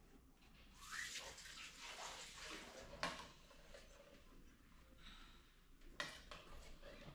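Faint splashing and sloshing of water in the kitchen, with sharp knocks about three and six seconds in.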